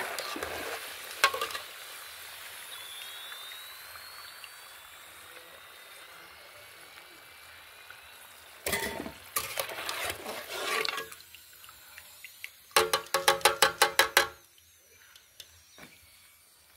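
Oil sizzling around potato slices deep-frying in a pot, a steady hiss that slowly fades. Past the middle the metal slotted skimmer clatters against the aluminium pot as the fried slices are lifted out. This is followed by a quick run of about a dozen ringing metallic taps.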